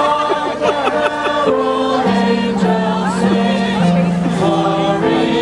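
Choir singing, with long held notes that change in steps.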